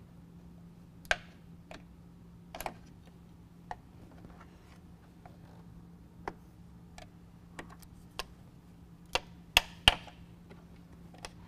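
Sharp, scattered plastic clicks and snaps as a trim panel tool pries two-piece plastic push pins out of a plastic radiator-support cover. The loudest pair comes near the end.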